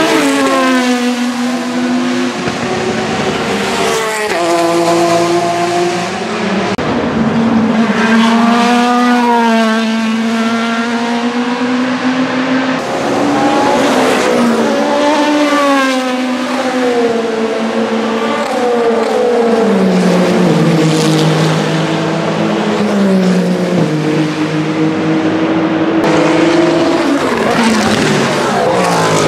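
Race cars going past at speed, one pass after another, led by the Vanwall Vandervell 680 hypercar's Gibson GL458 4.5-litre V8. The engine notes rise and step down through gear changes and fall away as each car passes.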